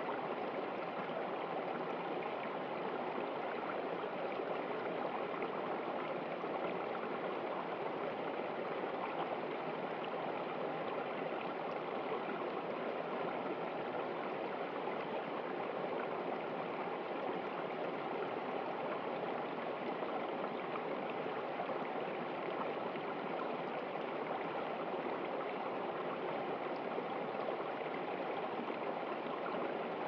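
A small stream flowing steadily over rocks and a low cascade, an even rushing and splashing of water.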